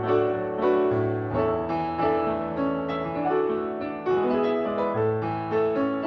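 Piano accompaniment for a ballet class combination: a melody and chords over low bass notes, struck at a steady, even pulse.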